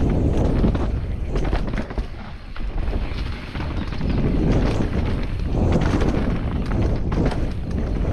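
Downhill mountain bike descending a rough trail: wind rushing over the microphone while the tyres rumble and the bike clatters with many quick knocks over the ground, easing off briefly about two seconds in.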